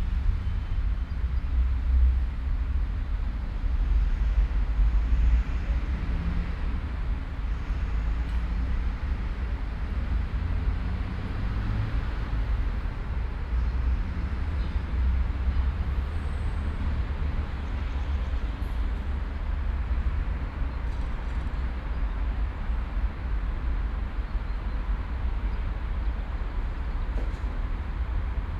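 City park ambience dominated by a steady low rumble of surrounding road traffic, with a few faint high sounds scattered through it.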